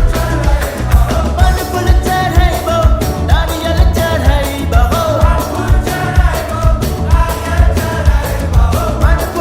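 Hindi devotional pop song to Shiva: singing over a steady beat with heavy bass and drums.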